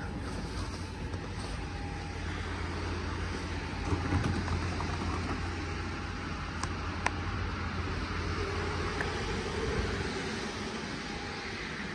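Steady low hum and rush from a stationary Zurich Tram 2000 (Be 4/6, Series 1) standing with its onboard equipment running. The hum fades after about eight seconds, and there are two faint clicks a bit past halfway.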